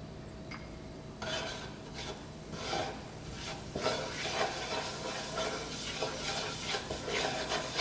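Ground spices sizzling in hot vegetable oil in a pan, with a spoon stirring and scraping against the pan in irregular strokes that start about a second in.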